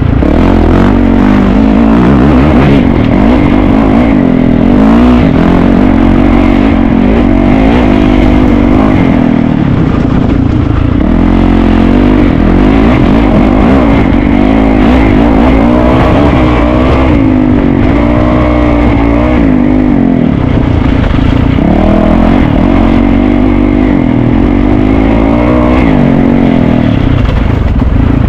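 Dirt bike engine running hard and revving, its pitch rising and falling over and over as the throttle is worked. Loud throughout.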